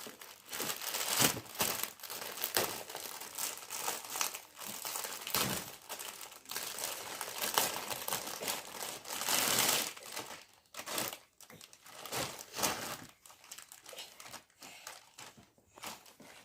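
Packaging being handled and unfolded: dense, irregular crinkling of paper and plastic wrapping, thinning out to scattered quieter crackles in the last few seconds.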